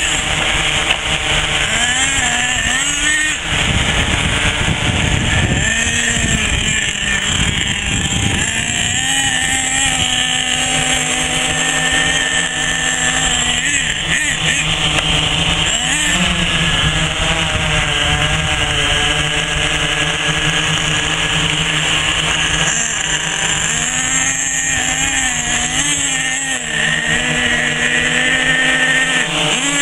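HPI Savage 4.6 nitro RC truck engine revving up and down as the truck drives, against a steady whine from multicopter motors and propellers.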